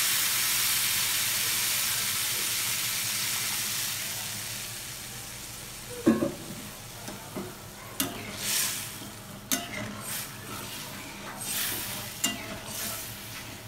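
Water poured into a hot kadai of potato and spice masala, hissing and sizzling and slowly dying down over the first five seconds. A knock about six seconds in, then a metal spatula scraping and stirring the watery curry in the metal pan in short strokes.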